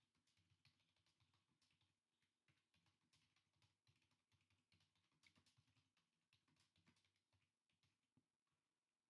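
Near silence, with faint irregular clicks several times a second that thin out near the end.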